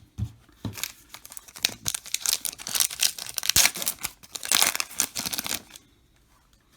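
Foil trading card pack wrapper being torn open and crinkled by hand, a run of crackling rips lasting about five seconds that stops near the end.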